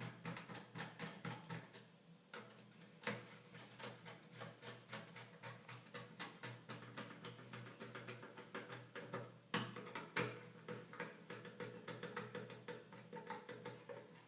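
Faint, rapid small clicks and taps of a screwdriver and screws working on the metal pressure plates over a PlayStation 3 Fat's CPU and GPU, with a few louder knocks.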